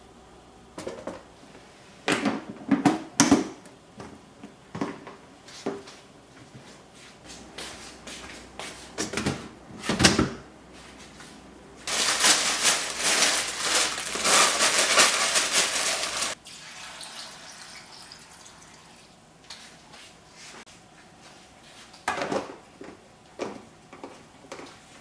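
Kitchen clean-up sounds: scattered knocks and clinks of containers and dishes being handled, then a kitchen tap running for about four seconds, shut off sharply, followed by a few more light knocks.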